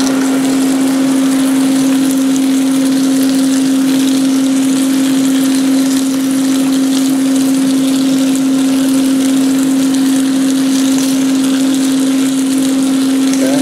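Blackstone 17-inch griddle and air fryer combo's air-fryer fan running at full speed, a loud steady hum, over ground beef and peppers sizzling on the hot griddle.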